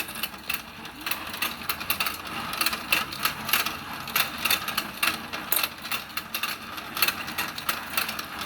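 Battery-powered toy fishing game running: its motor turns the plastic pond and fish, the gears rattling with a rapid, uneven clicking.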